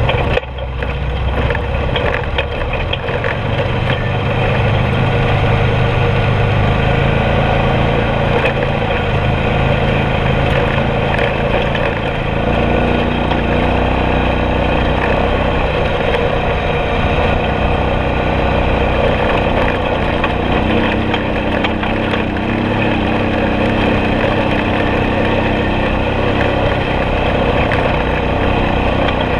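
Four-wheeler (ATV) engine running steadily while riding a dirt trail, with a rough, noisy edge over the engine note. The engine's note shifts a couple of times partway through.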